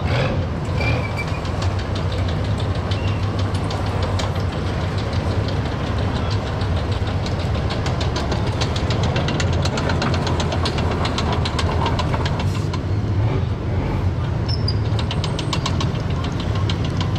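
Tracked armoured vehicles rolling past with a steady low engine rumble. Their steel track links clatter in rapid runs of clicks, strongest through the middle and again near the end.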